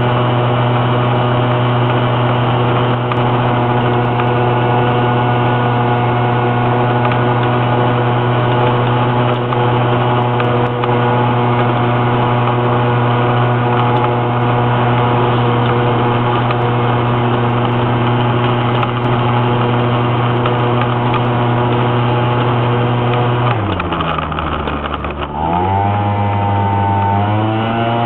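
Small motor scooter engine running steadily at high revs while climbing a hill, heard from on board. About 23 seconds in the revs drop sharply, then climb back up over the last few seconds.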